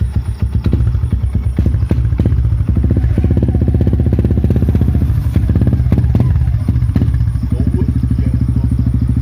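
Yamaha Y15ZR's single-cylinder four-stroke engine running steadily at idle through an Espada 'cutting standard' aftermarket exhaust, with loud, evenly spaced exhaust pulses.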